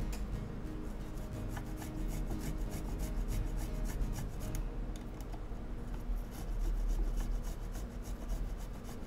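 Fresh ginger root grated on a hand grater: a quick, even run of rasping strokes.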